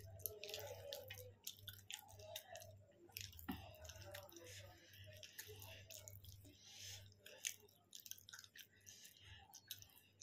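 Faint close-up chewing of food, with many irregular wet mouth clicks and smacks. A faint low pulsing hum runs underneath.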